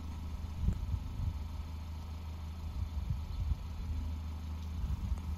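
Car engine idling, a steady low hum.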